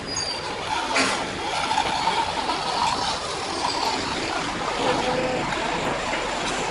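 Heavy construction vehicle running, a steady noisy rumble, with a brief sharp noise about a second in.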